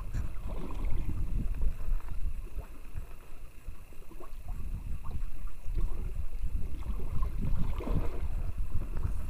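Wind rumbling in gusts on the microphone, with water lapping and splashing against a small wooden boat's hull on choppy sea.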